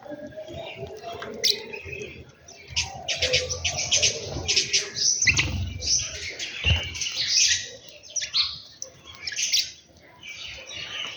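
A flock of small birds chirping, many short, high calls overlapping, busiest from about three to eight seconds in, with a couple of low thumps in the middle.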